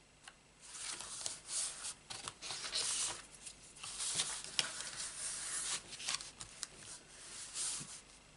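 Card stock rustling and rubbing as a folded handmade greeting card is closed, turned over and slid flat onto a craft mat, with irregular scrapes and light clicks.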